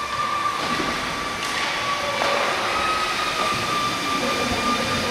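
Ice hockey rink ambience during play: a steady rush of noise with a thin high whine running through it, and a single sharp knock about one and a half seconds in.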